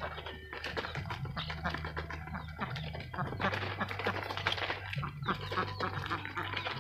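A flock of domestic ducks feeding at a hanging feeder: a busy run of clicking and pecking of bills in the feed tray, mixed with duck calls. A low steady hum runs underneath.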